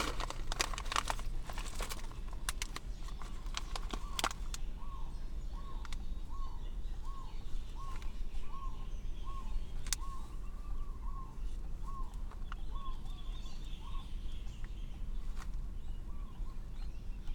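Crinkling and clicking of a plastic snack packet being handled for the first few seconds. Then a bird chirps in a regular series of short, identical notes, about three a second, for around ten seconds, over a steady low hum.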